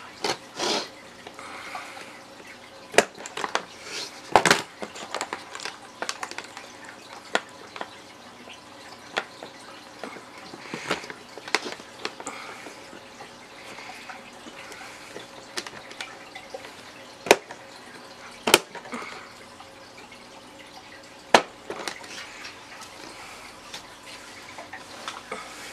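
Handling noise: scattered sharp clicks and taps as wires and crimp connectors are worked against the plastic lid of a tackle box, with quiet rustling between.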